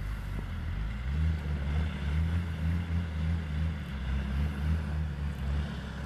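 Off-road vehicle engines running under load during a tow-strap recovery: a VW Touareg pulling a Nissan Patrol Y60 that is hung up on a stump by its axle. The low engine drone swells about a second in and wavers.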